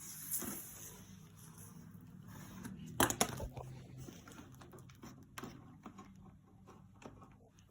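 Handling noise from opening up an iMac: rustling and small scrapes, with two sharp clicks close together about three seconds in and scattered light taps after.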